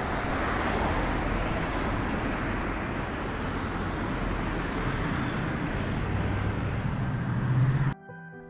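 Cars driving past on a street, a steady rush of tyre and engine noise. Near the end one engine note rises as a vehicle speeds up, then the sound cuts off suddenly.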